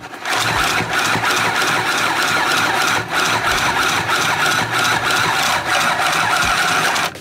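Mini pedal sewing machine running steadily, its needle stitching through eight layers of denim without stalling. The noise starts at once, dips briefly about three seconds in, and cuts off near the end.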